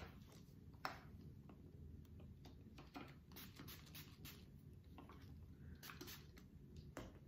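A few quiet spritzes from a small pump spray bottle sprayed onto the hands, with soft clicks and plastic rustling from handling the bottle and a plastic bag.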